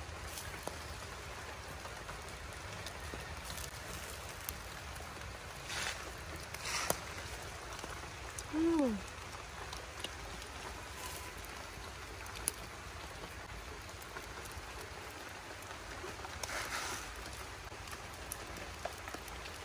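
Light rain falling steadily, with a few soft taps and knocks from handling. About nine seconds in comes one short falling voice-like sound.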